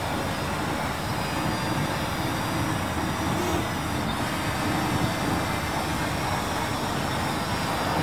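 Parrot Anafi quadcopter's propellers buzzing steadily as it hovers overhead, a faint hum under a steady hiss, its pitch wavering slightly.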